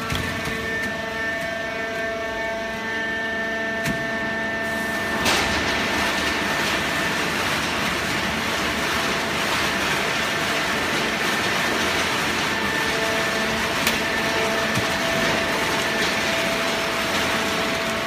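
Horizontal hydraulic cardboard baler running: a steady machine hum with a few steady whining tones. About five seconds in, a louder, even rushing noise joins in and continues.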